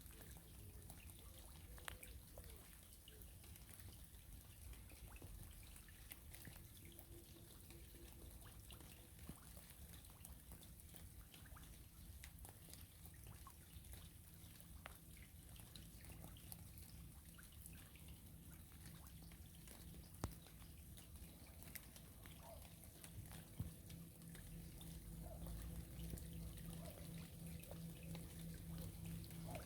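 Faint rain falling on a river: scattered raindrop ticks and drips over a low steady rumble, a little louder near the end.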